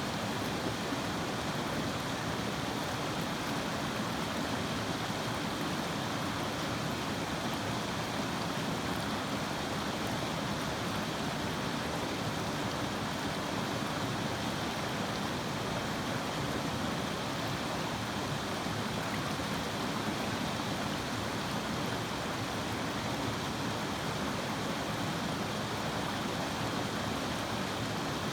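River water flowing, a steady even rushing.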